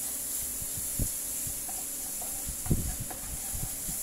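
Food sizzling in a frying pan as it is stirred with a wooden spatula, a steady hiss with a few dull knocks of the spatula against the pan, the loudest near the middle.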